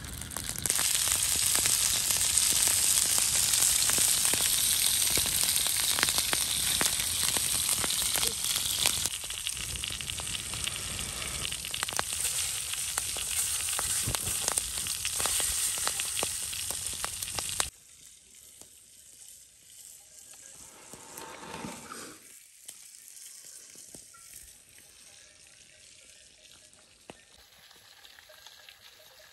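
Lumberjack steaks sizzling hard in a frying pan over a campfire, a little quieter from about nine seconds in. The sizzling cuts off abruptly after about eighteen seconds, leaving only faint quiet background.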